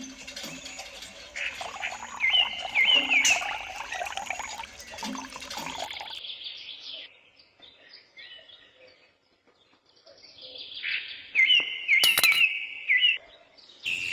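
Small birds chirping in short, quick runs of repeated chirps, one group a couple of seconds in and a matching one near the end, with a quiet stretch between.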